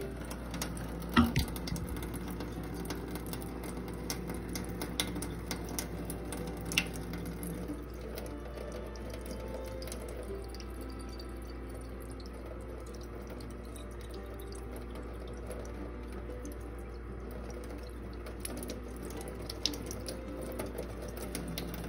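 A kitchen faucet runs a thin, steady stream of water into the narrow neck of a glass Aqua Globe watering bulb held over a stainless steel sink, filling it. A sharp knock sounds about a second in.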